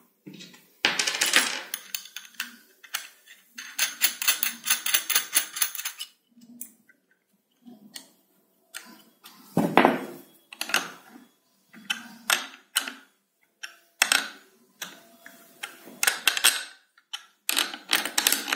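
Steel bolts, nuts and a wrench clicking and rattling against a 3D-printed plastic CNC carriage as it is assembled by hand, in irregular bursts of clicks with one louder knock about halfway through.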